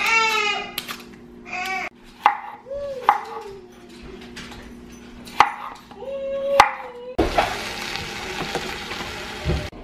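Knife clicking against a wooden cutting board as apples are cut, with a few short high vocal sounds among the clicks. From about seven seconds in, a wooden spoon stirs diced apples and sugar in a metal pot, making a steady dense scraping noise.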